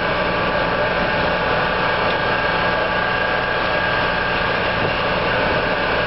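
Fire engine running steadily at the fire scene, a continuous engine drone with a steady high tone over it.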